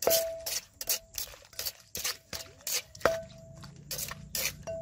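Pestle and spoon working green papaya salad in a mortar: quick, even scraping strokes, about three or four a second, with a few ringing clinks.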